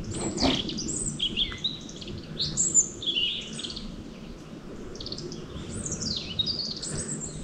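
Small songbirds singing and calling: a string of short, high, thin phrases and falling whistled notes, several birds overlapping, over a low background hum.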